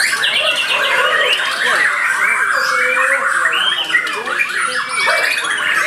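Several caged white-rumped shamas (murai batu Borneo) singing at once, their whistles and chirps overlapping without a break.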